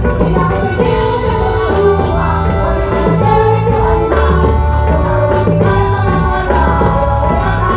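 Live band playing a forró song: singing over a steady bass line and quick, even percussion.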